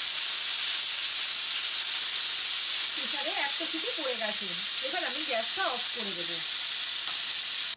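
Pressure cooker whistling: a loud, steady jet of steam hissing out from under the weight on the lid vent, the whistle that shows the cooker has come up to full pressure. The hiss cuts off suddenly at the end.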